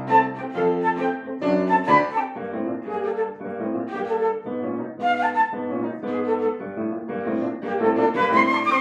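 Classical instrumental music: a woodwind melody over piano accompaniment, moving in quick successive notes.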